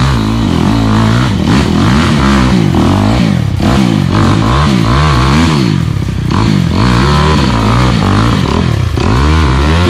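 Small motorcycle engine revving up and down over and over, its pitch rising and falling about once a second as the throttle is worked in short bursts.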